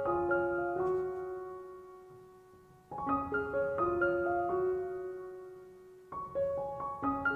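Background piano music: quick rising runs of notes that are left to ring and fade, with a new phrase starting about every three seconds.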